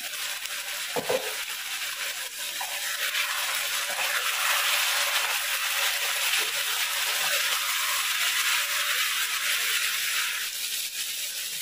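Chicken pieces in masala sizzling as they fry in a kadai, stirred with a spatula, with one knock about a second in. The sizzle swells a few seconds in and eases near the end.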